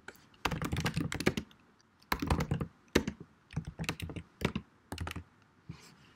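Typing on a computer keyboard: several quick runs of key clicks with short pauses between them.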